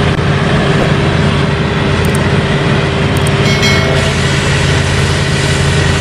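Mobile crane's engine running at a steady, loud hum; the sound cuts off at the end.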